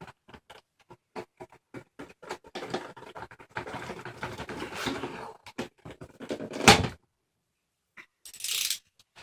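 Cardboard and plastic packaging being worked open by hand: a run of scratches, scrapes and rustles, with one loud sharp crack about seven seconds in and a short rustle near the end.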